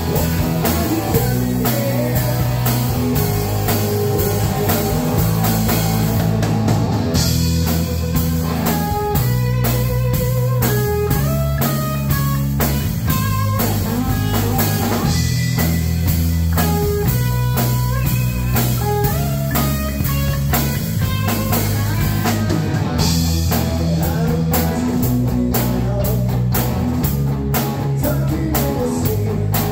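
Live rock band playing an instrumental passage: electric guitar, electric bass and drum kit. Through the middle stretch a lead guitar plays a line of single notes over the bass and drums, and the cymbals come up brighter again near the end.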